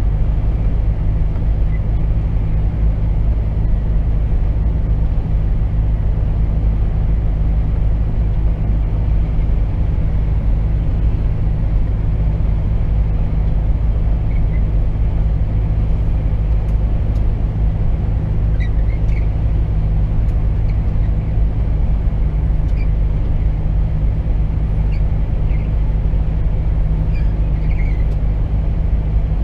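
Volvo FH 460 truck cruising steadily at motorway speed, heard inside the cab: a constant low drone from its 13-litre six-cylinder diesel, together with tyre and road noise.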